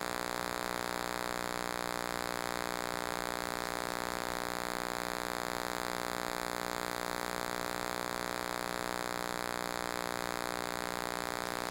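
Steady electronic buzzing whine with an underlying hum and hiss, a noise fault in the camera's recording rather than a sound of the work itself.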